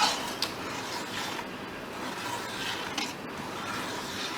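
Light kitchen handling sounds: a few short clicks and scrapes of a utensil or container, over a steady background hiss.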